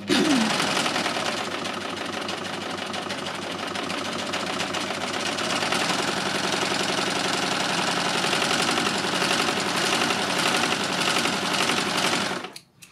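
Success Lucie overlocker stitching a narrow three-thread edging stitch at a short stitch length along a strip of fabric, running at a steady speed with a fast, even rattle of needle and loopers. It starts abruptly and stops near the end.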